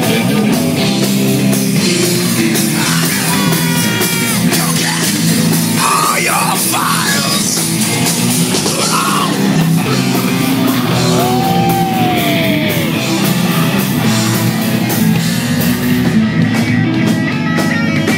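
Rock band playing live and loud with electric bass, guitar and drums, and a singer yelling over them.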